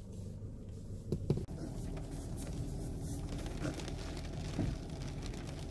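Steady low engine and road rumble inside the cabin of a SsangYong Rexton Sports Khan pickup driving slowly on a rough track, with light ticks of rain on the glass. A couple of sharp knocks come a little over a second in.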